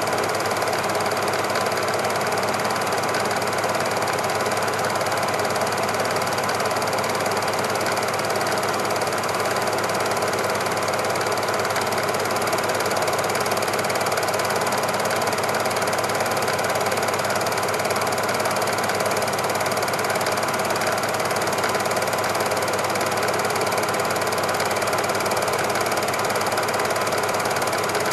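A machine running steadily with a fast, even clatter and a constant hum, unchanged throughout.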